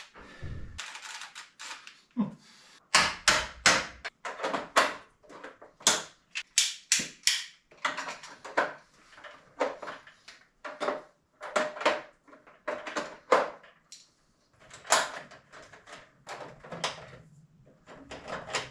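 Irregular series of sharp metallic clicks and snaps, one or two a second, from hand work at an electrical breaker panel.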